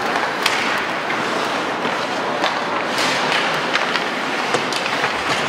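Ice hockey play in an indoor rink: skate blades scraping the ice and scattered sharp clacks of sticks and puck over steady arena noise.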